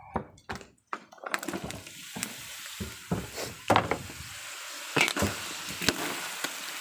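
Pork and carrot strips frying in a wok, a steady sizzle that comes in about a second in, with sharp knocks and scrapes of stirring through it.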